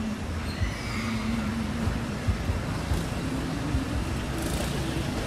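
Steady low rumble of distant road traffic, with short low thumps now and then.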